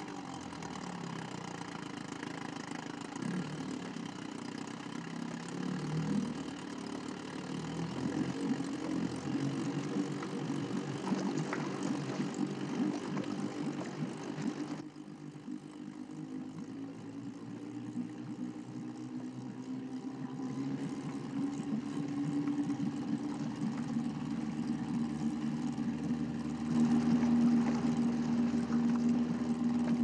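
Small boat's outboard motor running steadily, getting louder and more even for the last few seconds.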